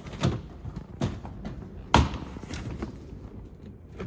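Sharp plastic clicks and knocks from a Tesla Model Y's plastic cowl apron panel being lifted off its clips by hand, three clear ones with the loudest about two seconds in.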